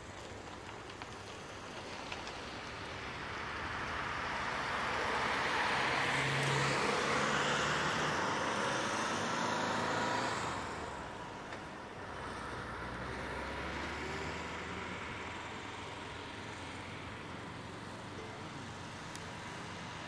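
A road vehicle passing: tyre and engine noise swells over several seconds, peaks mid-way and drops away about eleven seconds in. A fainter, lower vehicle sound follows.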